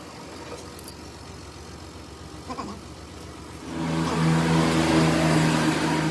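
A sharp click about a second in, then a machine starts up near the end and runs with a steady, even hum.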